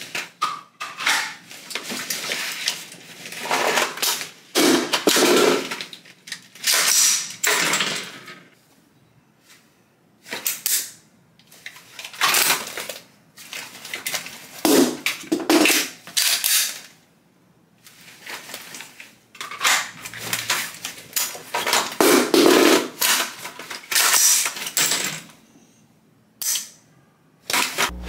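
Handling noise from dry-fire practice: a pistol and an AR-type carbine being manipulated, with magazines and nylon chest-rig gear clacking and rustling. It comes in clusters of short bursts, with brief quiet pauses about ten, eighteen and twenty-six seconds in.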